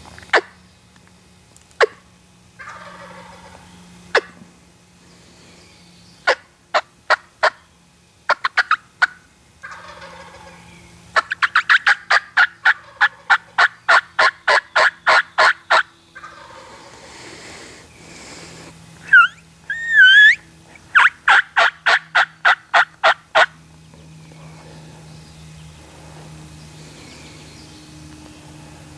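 Turkey calling: a few single sharp clucks, then short runs of yelps and a long, even series of yelps at about four to five a second. A louder wavering call comes about two-thirds of the way through, followed by another run of yelps.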